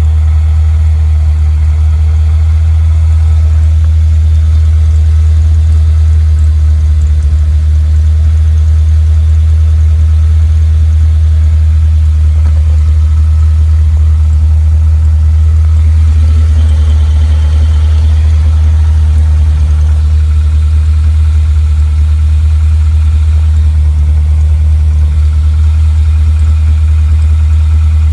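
Toyota Celica's 2ZZ four-cylinder engine idling steadily through a newly fitted aftermarket stainless cat-back exhaust, with a loud, even low drone from the exhaust.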